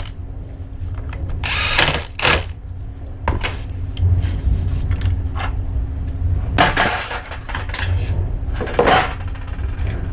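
A power tool running in several short bursts of under a second each, over a steady low hum.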